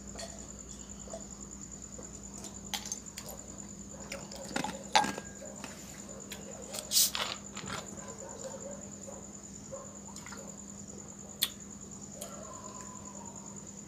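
A drink being mixed by hand: glass and bottles clink and knock, liquid pours, and there is a short loud hiss about seven seconds in. Under it runs a steady high-pitched chirring of crickets.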